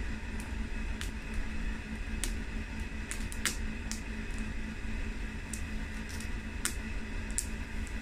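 A steady low hum with a fainter higher drone over it, and light scattered clicks, about a dozen, spread unevenly through it.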